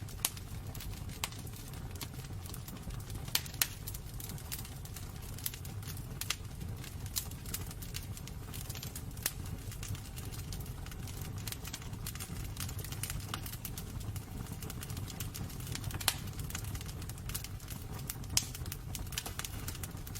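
Wood fire burning in a fireplace: irregular sharp crackles and pops from the burning wood over a steady low roar of the flames.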